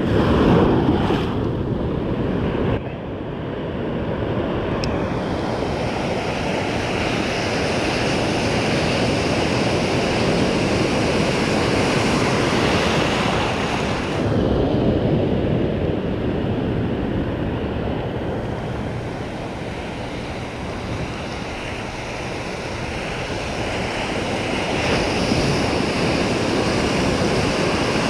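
Ocean surf breaking and washing over the beach, a continuous rushing noise that swells and eases as the waves come in.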